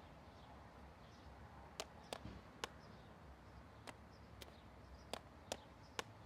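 Near silence: a low hum with about eight faint, sharp clicks at uneven spacing.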